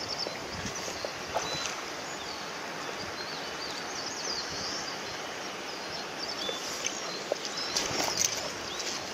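Steady outdoor hiss, likely wind through grass and trees, with birds chirping briefly several times and a few light knocks.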